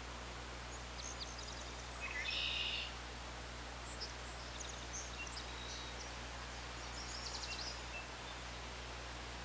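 Songbirds calling and trilling over a steady low background hum. A buzzy call about two seconds in is the loudest, with a quick trill near seven seconds.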